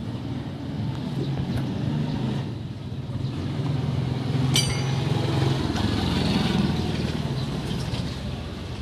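An engine running steadily with a low hum, a little louder in the second half, and one sharp click about four and a half seconds in.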